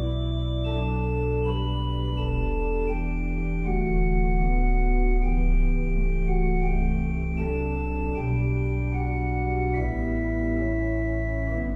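Church organ playing slow, sustained chords over deep held bass notes, the harmony changing every second or so.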